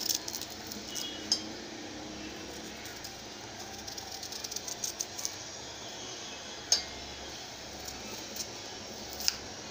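Small knife cutting and scraping the skin off a raw green banana in strips: soft, faint scraping with a few sharp clicks.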